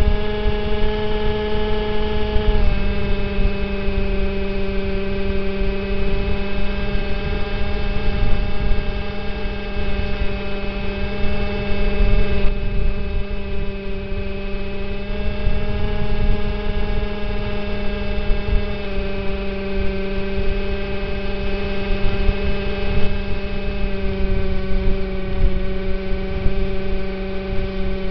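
RC model plane's motor and propeller heard from on board: a steady, loud hum with many overtones over low wind rush, dipping slightly in pitch a few seconds in and again later.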